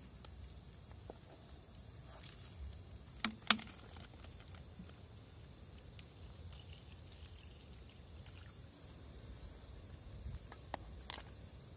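Quiet food-prep handling: a knife slicing tempeh on a wooden cutting board, with two sharp knocks about three seconds in, then a metal spoon clicking softly against a ceramic bowl near the end.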